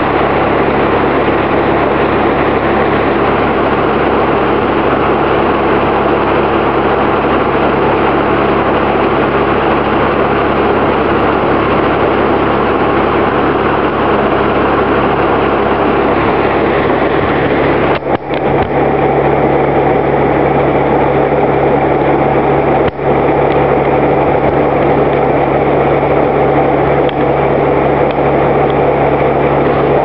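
Early 20th-century Oxford Foundry & Machine Co. sawmill running: its drive machinery and large circular head saw turning with a loud, steady mechanical drone, briefly dipping twice in the second half.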